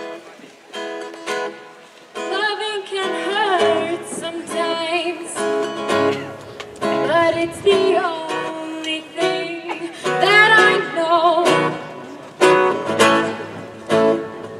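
A choir singing a song into microphones, with strummed instrumental accompaniment; the voices swell and waver with vibrato over steady chord strokes.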